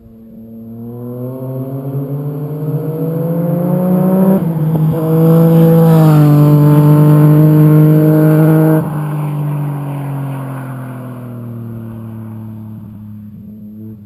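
A sport motorcycle accelerating hard through the gears, its exhaust note climbing, with a short break and dip at a gear change about four seconds in. It is then held loud at high revs, drops suddenly near nine seconds as it passes, and its pitch falls and fades as it rides away.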